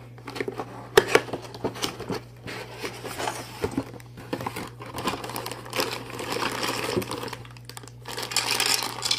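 Cardboard toy box being opened and handled, with scattered clicks and knocks, then plastic bags of toy parts crinkling and rustling through the second half.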